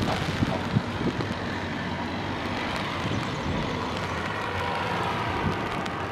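Wind noise on the microphone over a steady outdoor background, with faint, wavering siren tones from far off coming in after about two seconds.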